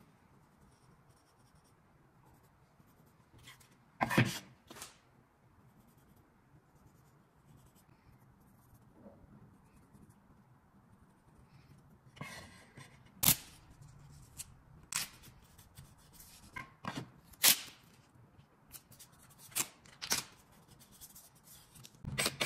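Scattered light knocks and clicks of wood pieces and hand tools being handled on a workbench, about a dozen sharp taps spread out over a low room hiss, with most of them in the second half.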